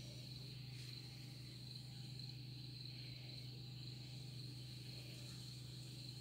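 Steady high trilling of night insects, crickets, without a break, over a low steady hum.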